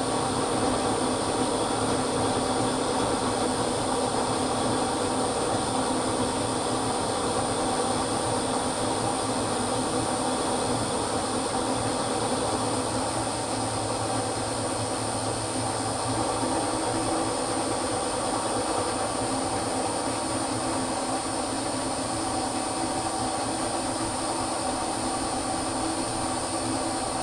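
Milling machine running, its spindle turning an end mill that is cutting a scallop into a round metal workpiece: a steady machine sound with several held tones at an unchanging level.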